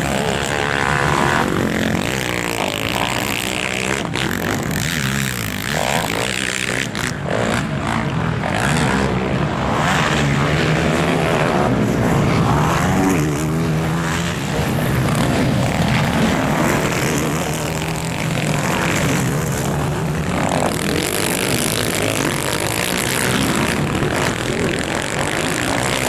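Several racing quad bikes' engines revving hard, the pitch climbing and dropping again and again with the throttle as the quads ride by over the dirt track.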